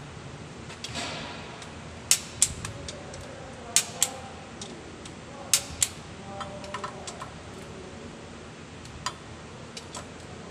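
Hand tool clinking against metal: sharp metallic clicks, three loud pairs of clicks in the first six seconds, then lighter scattered ticks.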